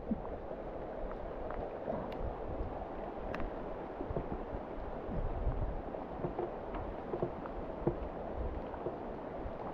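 A river running steadily, a low, even rushing, with a few faint clicks and knocks.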